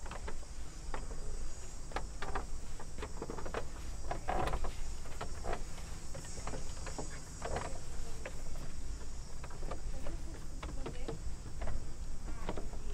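Steady high drone of insects, with irregular footsteps scuffing and knocking on stone and a low rumble underneath.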